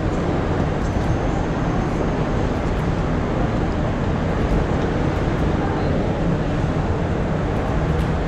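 Steady rumble and hiss inside a crowded passenger train standing at the platform with its doors open.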